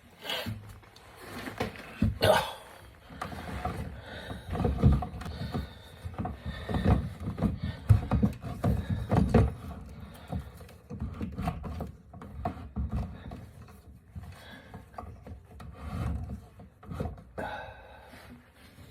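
Irregular knocks, thumps and rubbing from hands handling things in a small room.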